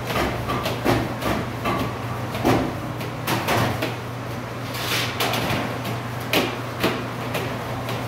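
Irregular knocks and clatter of a metal pizza pan on a stainless steel counter as dough is pressed out into it by hand, over a steady low hum.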